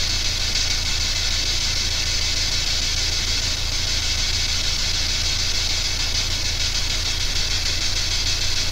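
Steady static hiss over a low electrical hum, unchanging throughout, with no distinct knocks or voices.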